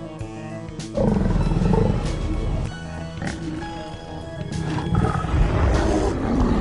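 Brown bear roaring in two long, deep growls, the first starting about a second in and the second near the end, over background music.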